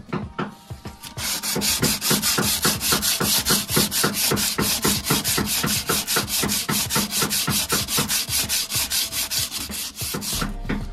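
Sandpaper rubbed by hand back and forth over an aluminium car wheel rim, stripping its peeling chrome finish. A few light strokes, then fast, even scraping strokes, several a second, from about a second in.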